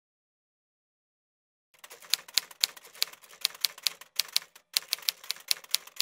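Digital silence, then after about a second and a half a quick, uneven run of typewriter keystroke clacks, about three to four a second, with two short pauses. It is a typewriter sound effect for the caption being typed onto the screen.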